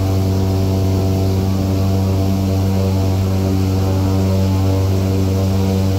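Airboat engine and large air propeller running steadily at speed, a constant low drone.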